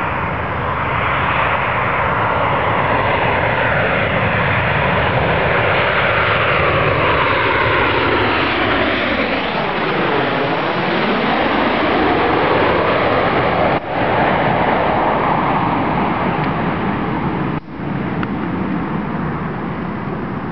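Boeing 737-700's CFM56-7B turbofan jet engines on final approach, loud and steady as the airliner passes low directly overhead, with a whooshing sweep in tone about halfway through, then running on as it heads away.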